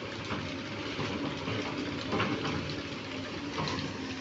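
Sany excavator's diesel engine running steadily, with water sloshing as the bucket works wet ground and a couple of short knocks, one about two seconds in and one near the end.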